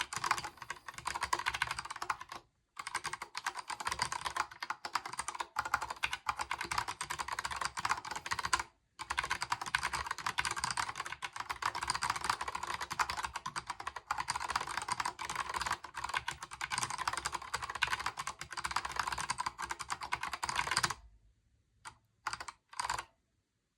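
Fast typing on a Kinesis Advantage 360 Pro split ergonomic mechanical keyboard with Gateron Brown tactile switches: a dense, rapid run of key clicks with two brief pauses. The typing stops about three seconds before the end, apart from a few last keystrokes.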